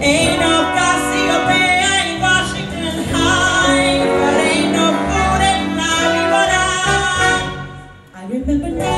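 A woman sings a solo song through a microphone, with instrumental backing. The music dips briefly near the end, then comes back in.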